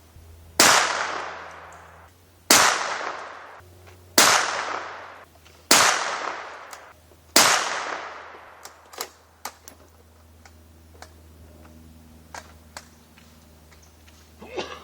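Five shots from a Ruger American Ranch .223 bolt-action rifle, fired about one and a half to two seconds apart, each followed by a long fading echo, then several light clicks and knocks. The rounds are light-charge home-cast lead handloads meant to be subsonic, and the shooter is unsure whether they actually stay below the speed of sound.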